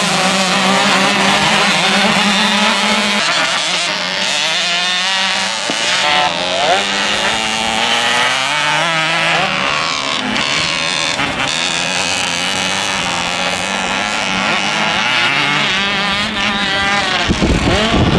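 Several small dirt bikes on a snowy motocross track, their engines revving up and down in pitch as they ride through the bends. Near the end one bike revs loud and close.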